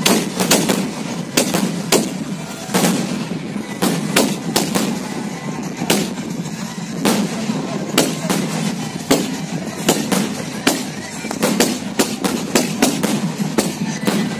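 Fireworks going off: a rapid, irregular run of loud bangs and crackles, several a second at the busiest moments.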